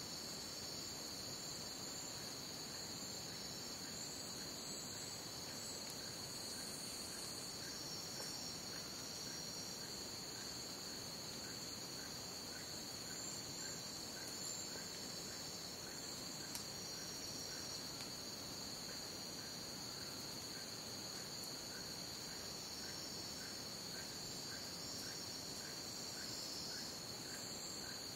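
Chorus of jungle crickets: a steady, continuous high trill with no pauses. Beneath it a faint, lower short call repeats about twice a second.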